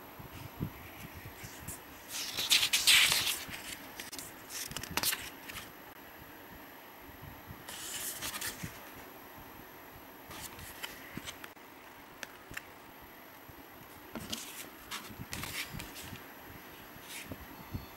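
Paper pages of a passport booklet and a pedigree certificate being handled and turned: rustling and scraping, loudest about two to four seconds in, again around eight seconds and near fifteen seconds, with small taps and clicks between.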